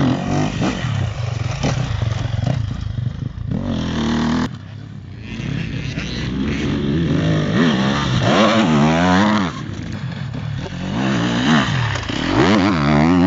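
Sherco SEF 300 Factory enduro bike's four-stroke single-cylinder engine being ridden, revving up and down with quick repeated throttle blips.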